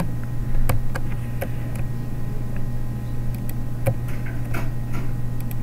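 Computer mouse clicking a handful of times at irregular intervals while selecting points, over a steady low electrical hum.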